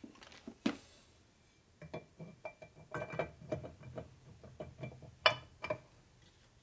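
Aluminium cam cover being fitted onto a Harley Sportster ironhead engine case: metal clinking and light knocking as it is worked into place, with the loudest knock a little after five seconds in.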